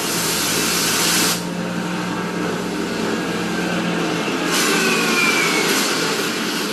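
Steady engine drone under a loud rushing hiss; the hiss cuts out about a second and a half in and comes back past the four-second mark.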